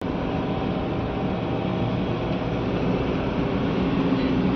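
Steady engine and road noise of a moving car heard from inside the cabin, an even rumble.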